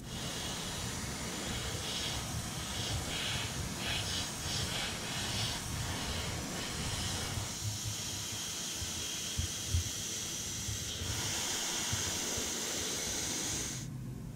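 Airbrush spraying paint onto a small model engine part: a steady hiss that drops out briefly about eleven seconds in and stops suddenly near the end.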